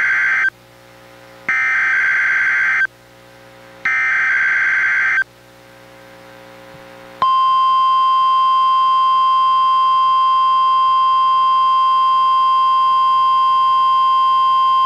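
NOAA Weather Radio SAME (Specific Area Message Encoding) header: buzzy two-tone digital data bursts, the end of one and then two more about 2.4 seconds apart. About seven seconds in, the steady 1050 Hz warning alarm tone starts and holds, sounded as a test of the receivers' alarm.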